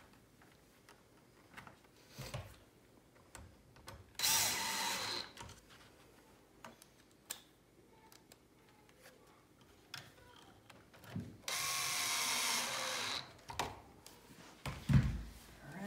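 Cordless drill driving screws into the bench's back support blocks: two short runs, the first about a second long and the second about a second and a half. Small clicks and knocks of handling come between them, and a heavy thump near the end is the loudest sound.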